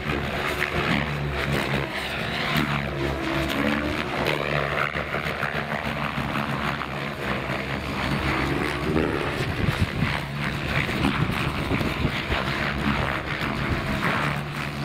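Several electric RC model helicopters flying at once, their rotor blades making a steady buzz. The pitch glides up and down as they manoeuvre.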